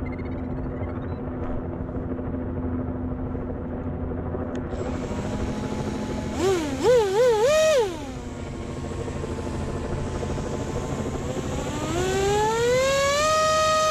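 Brushless outrunner motor driving a 7-inch three-blade propeller on a hand-held foam RC jet: three quick throttle blips, each rising and falling in pitch, about halfway through. Near the end it spools up smoothly to a steady high whine, the run-up to full throttle for the hand launch, over a low steady hum.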